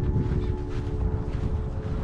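Wind buffeting the microphone: a low, uneven rumble that eases slightly, with faint held music notes coming in underneath.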